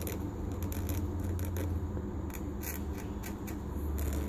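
Fingers rubbing and gripping a freshly turned hot-rolled steel bar, giving light scratching and scattered ticks over a steady low hum.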